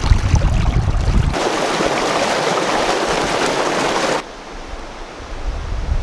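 Shallow stream water rushing over rocks, with a heavy low rumble of wind on the microphone for about the first second. A louder, brighter rush of water follows, then cuts off suddenly about four seconds in to a quieter, steady rush of the cascades.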